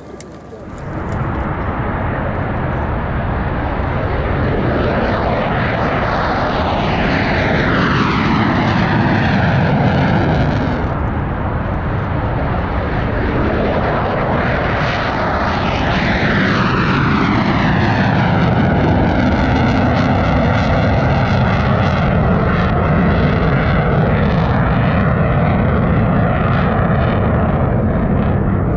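Loud jet noise from a Mitsubishi F-2 fighter's single turbofan engine as it takes off and climbs away. The whine falls in pitch twice as the jet passes.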